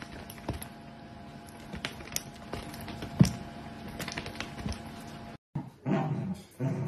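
Scattered light clicks and taps as a dachshund shakes its head about on a rug, one sharper click near the middle. About a second before the end it gives way to low growling from dachshunds playing tug-of-war with a rope toy.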